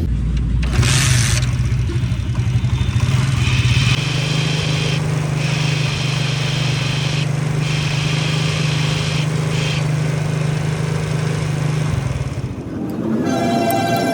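Engine running steadily, its pitch stepping up slightly about four seconds in, with a higher whine over it that drops out briefly three times: the clutch noise that is to be fixed. The engine stops about two seconds before the end.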